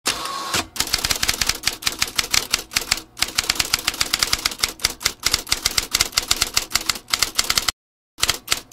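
Typewriter keys clacking in a fast, uneven run of keystrokes, several a second. The run breaks off briefly about three seconds in, pauses again near the end, and closes with a short last burst of strokes.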